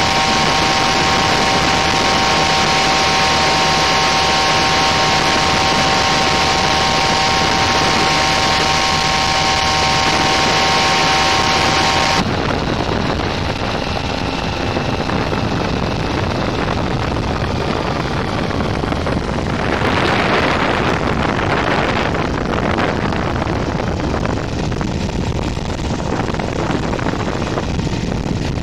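Ultralight's 16 hp paramotor engine running steadily with a steady whine, heard from on board with wind rushing over the microphone. About twelve seconds in the sound changes abruptly: the whine drops away, leaving a duller engine sound and wind rush, with a brief swell of noise a few seconds later.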